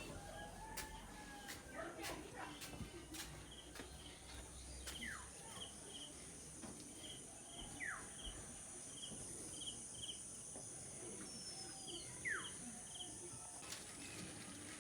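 Birds calling outdoors: rows of short chirps and three falling call notes about three seconds apart, with a falling whistle near the end, over a steady high insect drone.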